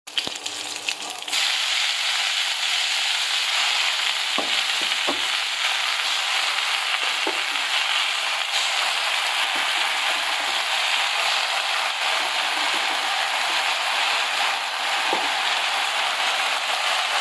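Green chillies and mustard seeds frying in hot oil in a kadai, then a heap of leafy greens (saag) sizzling steadily in the oil. The sizzle gets louder about a second in and stays even after that.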